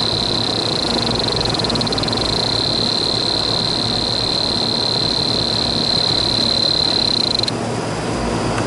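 Rooftop air-conditioning condenser units running with a steady rushing noise. Over it, a steady high-pitched whine holds and then cuts off abruptly about seven and a half seconds in.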